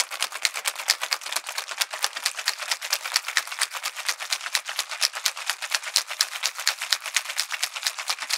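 Cubed ice rattling hard inside a stainless steel cocktail shaker tin during a vigorous shake, a fast, even rattle of several strikes a second. The hard shake uses the ice as a muddler to break up the mint leaves while chilling the drink.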